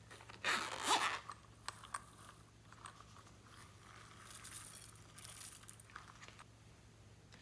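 A zipper on a yellow zippered case pulled open in one quick rasp about half a second in, followed by two light clicks and softer rustling of the case being handled.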